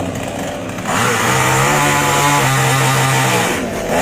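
Chainsaw running at idle, then revved hard about a second in and held at high speed, cutting wood; it drops off briefly near the end and is revved up again.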